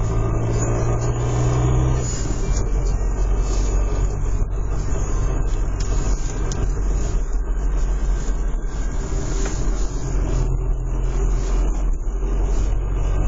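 Renault Laguna II 1.9 dCi four-cylinder turbodiesel running at a steady speed, carrying the strange noise its owner is asking about. Its low note shifts about two seconds in.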